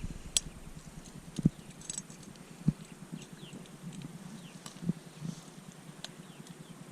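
A handful of soft, irregular thumps and knocks over a quiet outdoor background with faint short high chirps.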